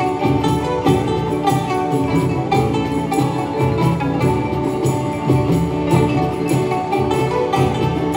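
Live folk ensemble music: a pipa and a guzheng plucking a melody over a steady hand-drum beat.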